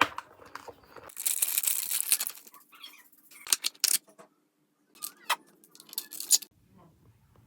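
Clay beads rattling and clicking as they are handled: a dense rattle about a second in, then several separate sharp clicks.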